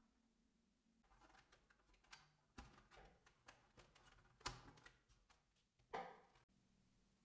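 Hard plastic toy parts clicking and knocking as they are handled and pressed together during assembly of a toy playset, a ramp and upright being fitted into the platform. A run of light clicks, with the two loudest knocks a little past halfway and near the end.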